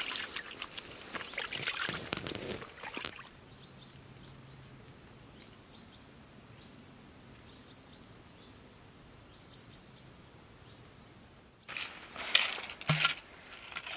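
Rustling and clicking of gear being handled at the start and again near the end. In the quiet stretch between, a small bird chirps faintly, high-pitched, about five times.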